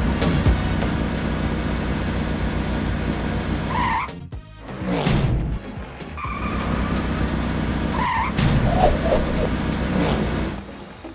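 Cartoon car sound effects: an engine running with several short tire squeals, about four, six and eight seconds in.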